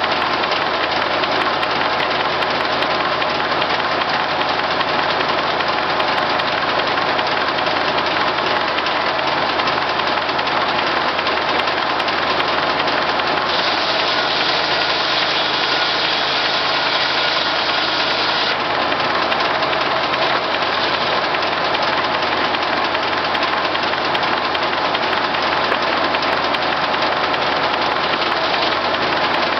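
Case six-cylinder power unit running steadily, driving a circular sawmill, with a hard continuous mechanical din. About halfway through, a brighter hiss joins in for roughly five seconds, then drops away.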